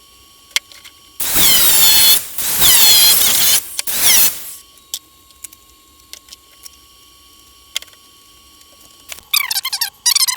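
A power tool cutting slots into 3-inch PVC pipe, run in three bursts of about a second each, its motor pitch sliding as it works. A brief warbling sound follows near the end.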